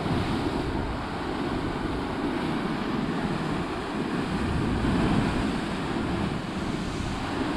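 Ocean surf surging and churning inside a narrow limestone sea pit, a steady rush with slight swells, heavy in the low end, with wind buffeting the microphone.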